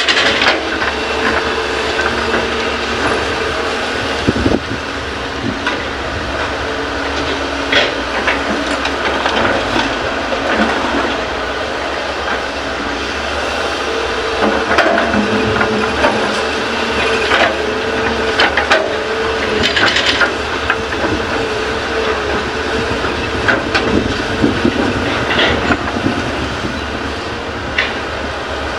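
Hyundai excavator's diesel engine running steadily under load, with metallic clanks and knocks every few seconds as the bucket digs and loads fill soil into a dump truck.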